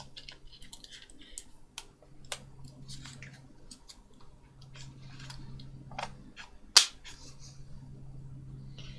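Scattered small clicks and taps of tools and parts being handled on a workbench, with one sharp, louder click about seven seconds in, over a steady low hum.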